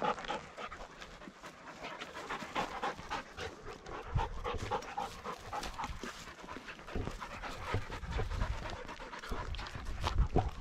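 Panting up close, with footsteps crunching through dry grass and brush: many small irregular crackles and a few dull thumps.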